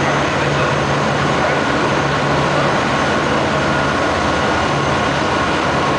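High-speed catamaran riverboat under way: its engines run with a steady low hum beneath a dense, constant rushing noise.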